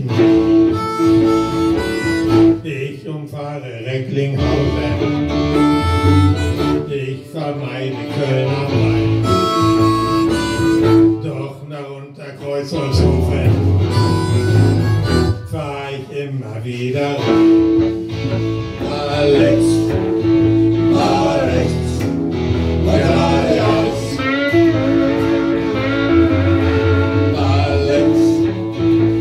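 Harmonica played into a microphone over strummed guitar accompaniment, a bluesy live band tune with sustained and bending notes.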